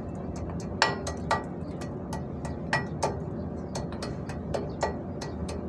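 Irregular sharp metallic taps and clinks of hand tools against a truck's steering knuckle and tie rod end, the louder ones about once a second and a few ringing briefly.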